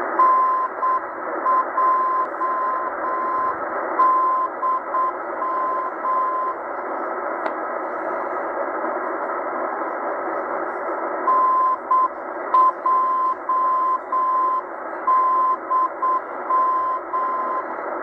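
Morse code (CW) station on 4251 kHz received on a Tecsun H-501x shortwave radio in upper sideband: a steady beeping tone keyed in dots and dashes, repeating the call NJDM, over constant static hiss. The call is sent twice, with a pause of about five seconds between.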